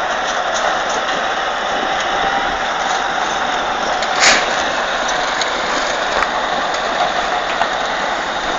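Crawler bulldozer's diesel engine running steadily, with a brief, sharp noise about four seconds in.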